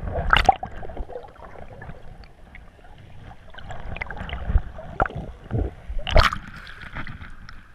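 Muffled underwater swirling and bubbling heard through a submerged action camera's housing in the sea, with two louder rushes of bubbles or splashing, one near the start and one about six seconds in.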